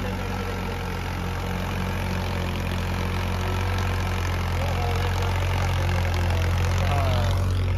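Ford 3600 tractor engine running steadily at a low, even pitch, slowly getting slightly louder.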